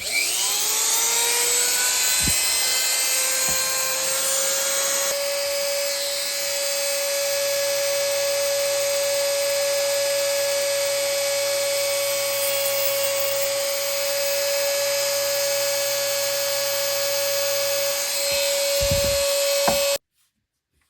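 Small high-speed rotary power tool cutting a metal watch-bracelet tube to length. It winds up to speed within the first second, runs at a steady high whine with a grinding hiss, then cuts off suddenly near the end.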